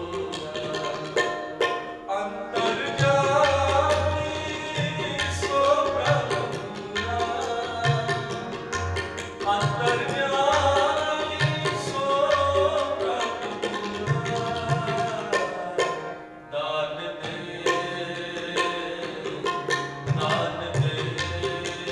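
Sikh kirtan: a man singing a shabad, accompanied by harmonium and tabla, whose low bass-drum strokes keep a steady rhythm under the melody. The music drops off briefly about sixteen seconds in.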